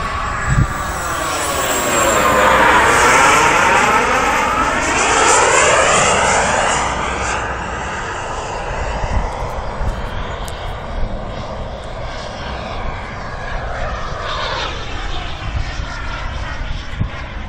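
Radio-controlled model airplane flying overhead, its motor's whine falling in pitch as it passes and then climbing again; a second, shorter rise in pitch comes near the end.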